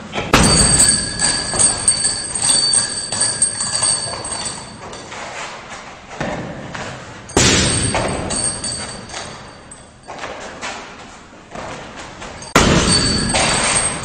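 Kicks hitting a heavy punching bag: three hard thuds a few seconds apart, each followed by a ringing that slowly fades. The first is an axe kick.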